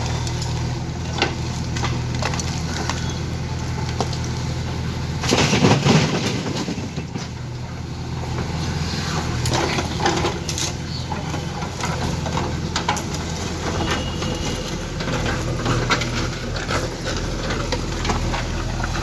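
JCB 3DX backhoe loader's diesel engine running steadily while its bucket scoops and dumps waste, with crunching, cracking debris throughout and one loud crunching burst about five seconds in.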